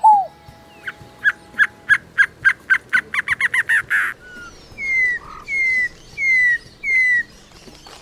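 Caatinga bird songs. A scaled dove's descending coo comes right at the start, then a long series of sharp notes that speed up like a bouncing ball, then four clear down-slurred whistles at an even pace.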